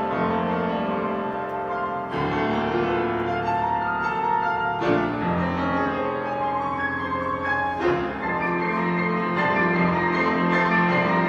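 Grand piano played four-hands as a duet: dense chords and running notes, with strongly struck new chords about two, five and eight seconds in.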